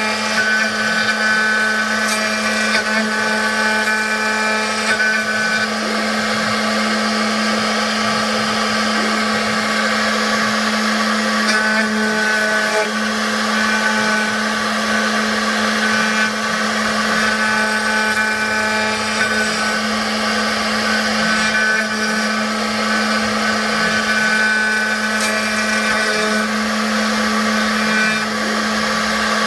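CNC router spindle running steadily while it carves lettering into wood: a constant hum with a noisy cutting hiss, and higher tones from the machine that come and go.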